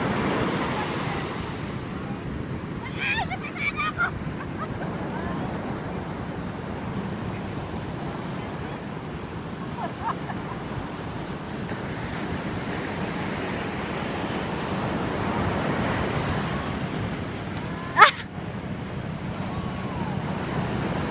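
Steady outdoor rushing noise, with a few brief high sounds about three to four seconds in and a single sharp click about eighteen seconds in.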